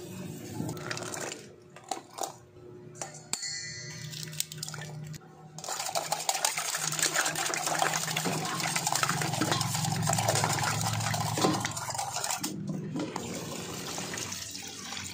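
Large ice chunks clinking and sloshing against the sides of a metal pot as beaten egg is stirred, a dense clatter from about five seconds in to about twelve seconds. Near the end, water is poured into the pot. A wire whisk scrapes through dry flour in a glass bowl at the very start.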